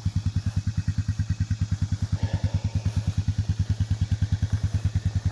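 The engine of a slow-moving vehicle running at low revs, an even low putt of about ten beats a second.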